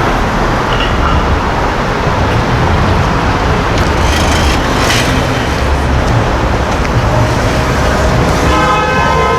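Street traffic: a steady rumble of car engines and tyres, with a car horn starting to sound near the end.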